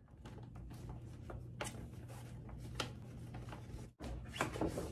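Handling of a cardboard gift box: scattered taps, clicks and rustles over a steady low hum.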